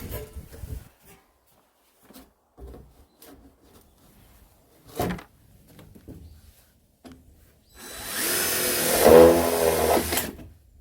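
A few light knocks and clicks of handling, then a power drill runs for about two and a half seconds near the end.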